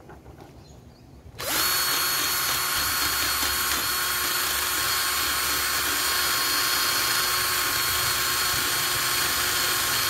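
Cordless drill spinning a wire wheel brush against the rusty rear axle nut and hub of a BMX, wire-brushing off surface rust. It starts about a second and a half in and then runs steadily: a high whine over a hiss.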